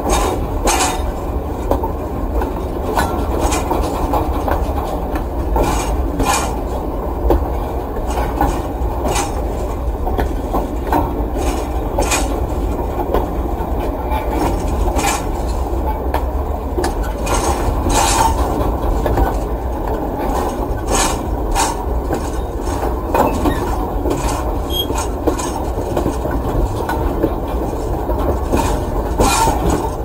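Freight train cars rolling over the track: a steady low rumble with frequent, irregular metallic clicks and knocks from the wheels.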